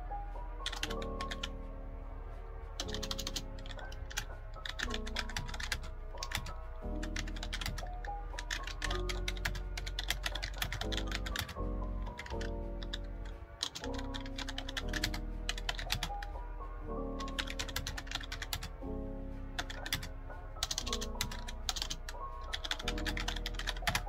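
Typing on a computer keyboard: quick runs of key clicks with brief pauses between them, over background music.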